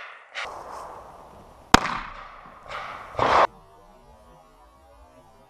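A single sharp gunshot about two seconds in: a scoped rifle firing a .22 pellet propelled by a low-power nail-gun blank at point-blank range into a ballistic gelatin block. A shorter, duller burst of noise follows about a second and a half later.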